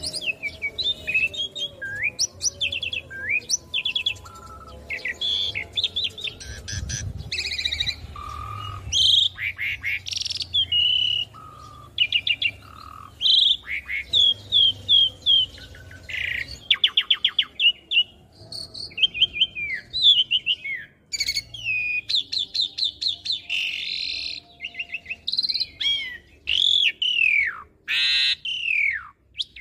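Asian pied starling (jalak suren) singing a long, varied song of quick chirps, fast repeated notes and whistles, with several long downward-sweeping whistles near the end.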